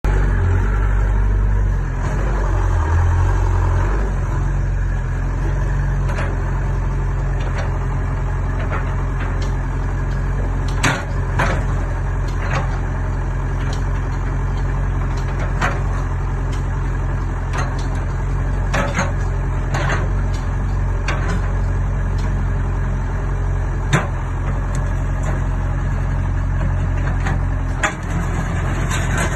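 Excavator engine idling steadily, with a few sharp metallic knocks or clanks now and then.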